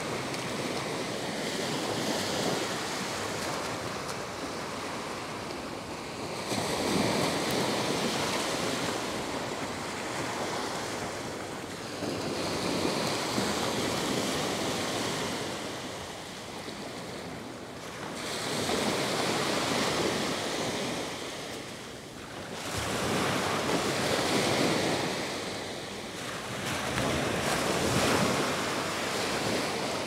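Small Gulf of Mexico waves breaking and washing up onto a sandy beach, the surf swelling and fading every five or six seconds.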